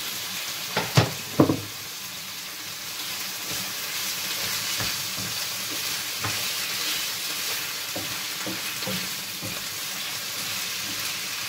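Chicken pieces and onion sizzling in hot oil in a frying pan, stirred with a wooden spatula. Two sharp knocks about a second in, then a steady sizzle with light scraping.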